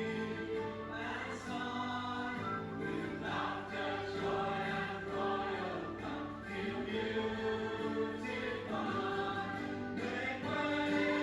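A choir singing a hymn with instrumental accompaniment, in steady held chords.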